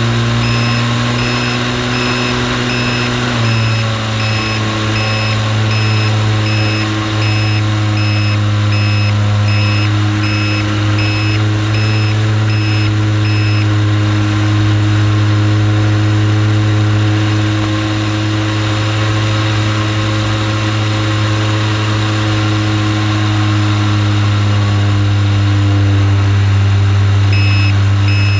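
Model airplane's motor and propeller running at steady cruise throttle, with a steady pitch that steps down once about three and a half seconds in. A regular high beeping repeats over it for the first half and again near the end.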